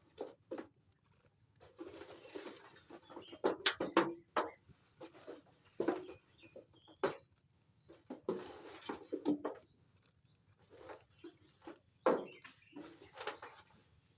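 Birds calling on and off, low cooing with a few short high calls, among scattered clicks and knocks.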